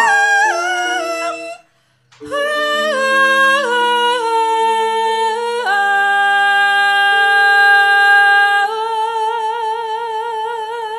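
A Javanese sinden (female gamelan singer) sings a melodic vocal line into a microphone over low sustained accompanying notes. She breaks off briefly about two seconds in, then sings on, holding a long note that takes on a wide vibrato near the end.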